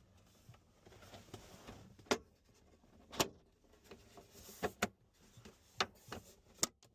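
Sharp plastic clicks and knocks, about five of them spaced roughly a second apart, with faint rustling between, as the QX80's center console armrest cover is pressed and worked back onto its hooks and clips.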